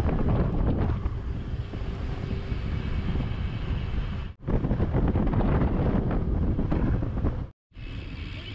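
Wind buffeting a moving mountain biker's camera microphone: a loud, steady low rumble that drops out abruptly twice for a moment.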